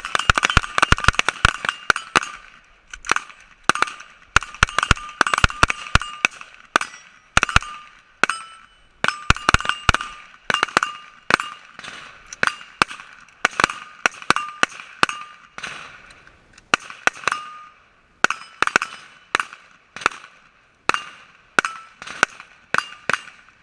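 Rifle fire from several shooters at once: dozens of sharp shots, irregular and often in quick clusters, each trailed by a short metallic ring.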